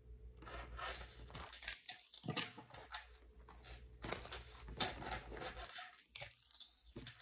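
Tarot cards being shuffled by hand: a dense papery rustle that starts about half a second in and comes in uneven surges with short breaks.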